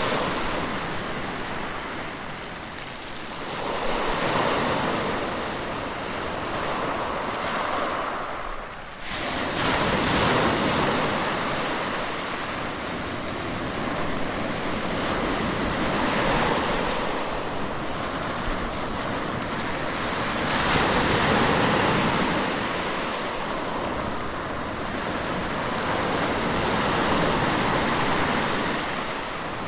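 Sea waves breaking and washing ashore, the surf swelling and ebbing about every five to six seconds, with a brief lull about nine seconds in.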